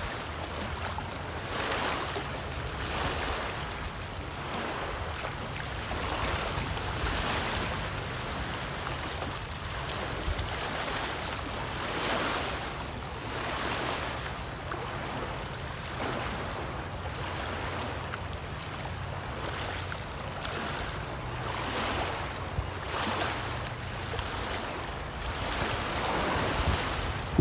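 Small wind-driven waves lapping and splashing against a rocky lake shore, washing in every second or two, with gusty wind rumbling on the microphone.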